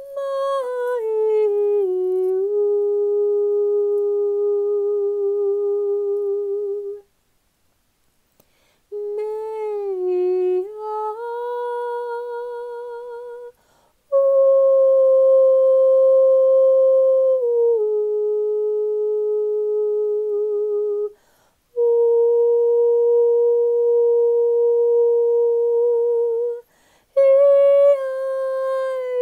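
A woman's voice toning: long, wordless sung notes, each held for several seconds with short breaths between. The pitch steps between a few steady notes, with a slight waver where some notes begin.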